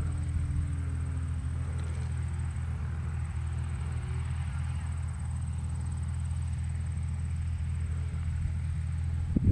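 Steady low wind rumble on the microphone, with the faint drone of a distant light-aircraft engine that falls slightly in pitch over the first two seconds.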